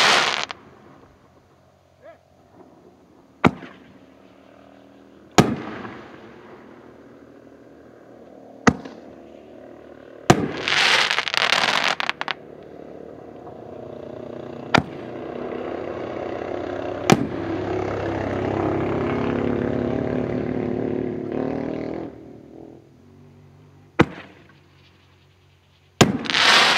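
Consumer reloadable mortar shells firing: a series of sharp bangs spaced a few seconds apart as the shells launch and burst. About ten seconds in comes a two-second burst of high noise, and a longer spell of steadier noise follows through the middle.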